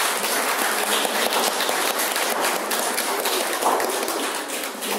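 Audience applauding, a dense patter of many hands clapping that dies away at the end.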